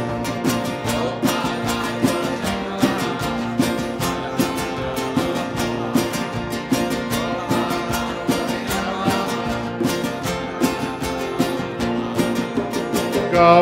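Kirtan accompaniment: guitar playing with hand percussion striking a steady, busy rhythm.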